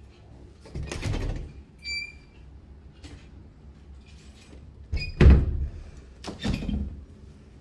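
Closet doors being opened and shut by hand: a rumble about a second in, a brief ringing squeak, then a click and two knocks, the first of them the loudest.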